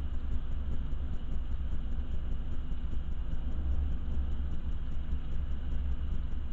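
Hurricane wind and rain heard from indoors as a steady low rumble, with an even hiss of rain over it.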